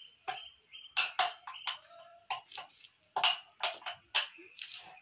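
A run of irregular sharp clicks and crackles from hands working at the rim of a plastic drum, loudest about a second in and again just after three seconds, over a faint steady high tone.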